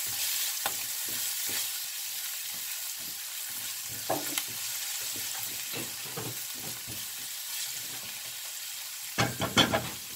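Chopped herbs, garlic and onion sizzling in oil in a non-stick frying pan while a spatula stirs and scrapes through them in short strokes. Near the end come a few louder clattering knocks of the spatula against the pan.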